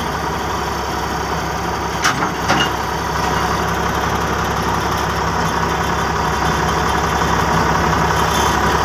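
An engine idling steadily, with two short knocks a little after two seconds in.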